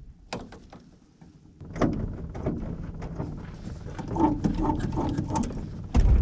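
Clicks and rattles of cockpit controls being worked, then, near the end, a sudden low rumble sets in as the Avid MKIV's two-stroke snowmobile engine starts up.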